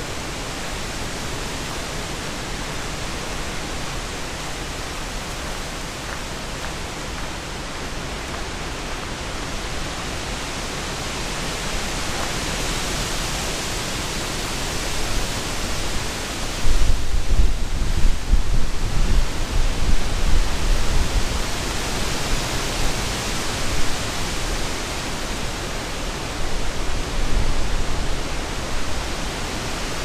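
Wind gusting, a rushing hiss that swells and eases twice. From a little past halfway, gusts buffet the microphone in irregular low thumps.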